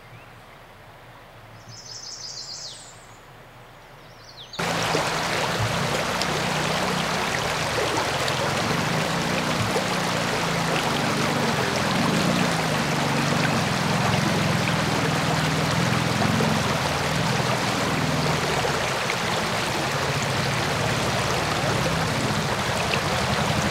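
A brief high bird call in otherwise quiet air. Then, about four and a half seconds in, the loud steady rushing of a fast, shallow river current starts suddenly and runs on evenly.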